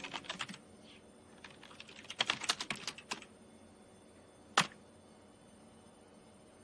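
Typing on a computer keyboard: quick runs of key clicks, a short pause, another run of clicks, then a single louder keystroke about four and a half seconds in.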